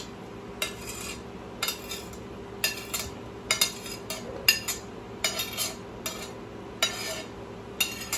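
Metal slotted spatula scraping and knocking against a plate, pushing cooked food off it into a saucepan: a string of sharp clinks, about one or two a second, over a steady low hum.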